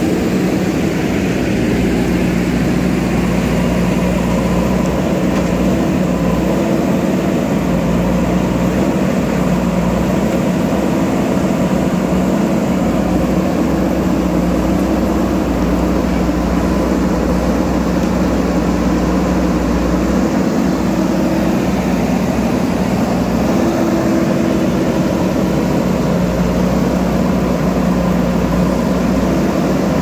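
JCB backhoe loader's diesel engine running steadily at a constant pitch, heard from close by.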